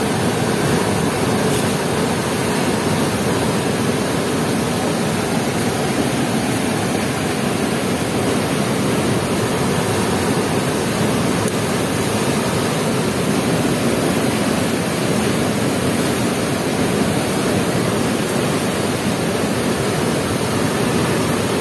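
Steady rush of turbulent water pouring through a river weir's gates.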